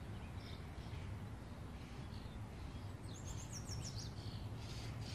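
Outdoor ambience: songbirds chirping over a steady low background hum, with a quick run of about six short high chirps about three seconds in.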